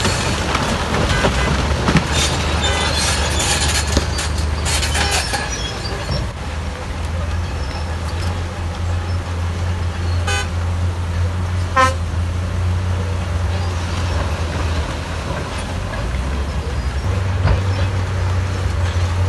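Heavy diesel trucks and earthmoving machinery running with a constant low engine hum. Two short horn beeps come about ten and twelve seconds in, and voices are heard briefly early on.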